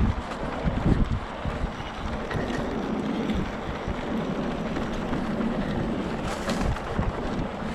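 Wind noise on the camera microphone over the rolling of a mountain bike's tyres on a dirt singletrack, with a few short knocks and rattles as the bike goes over bumps.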